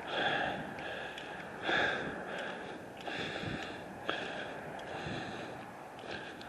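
A person breathing close to the microphone, a soft noisy breath roughly every one and a half seconds.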